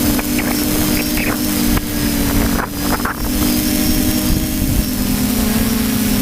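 Motor of a radio-controlled model aircraft in flight: a steady buzz whose pitch wavers and drops slightly after about four seconds, with a few rushes of wind on the microphone.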